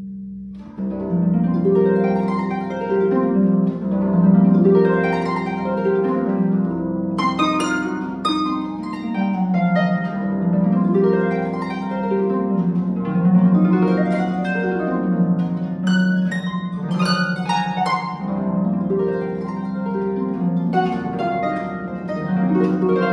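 Solo concert harp playing: rolling arpeggios that rise and fall about every two seconds over a held low bass, the phrase starting just under a second in, with bright high notes plucked now and then.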